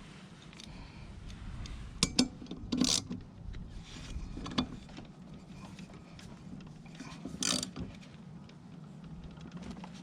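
The mower's blade bolt being tightened down with a wrench: a few short metallic clicks and scrapes, irregularly spaced.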